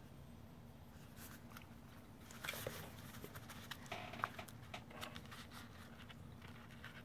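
Faint handling of paper memo books: cardstock covers and pages rustling and ticking as a notebook is opened and leafed through, over a low steady room hum.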